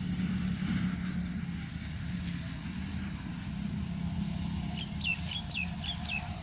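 A steady low rumble, with a small bird giving about five quick, downward-sliding chirps near the end.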